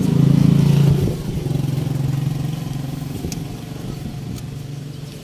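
A motor vehicle's engine passing close by: loudest in the first second, then dropping a little in pitch and fading away over the next few seconds.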